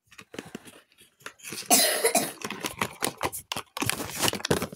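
Cardboard box and plastic wrapping rustling and scraping as a small speaker is pulled out of its packaging, a run of quick sharp clicks and crinkles, with one louder noisy burst about two seconds in.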